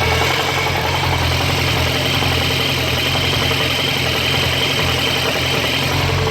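1998 Suzuki Bandit 1200's inline-four engine idling steadily when warm, recorded close to the oil filter, with a knock running through the idle.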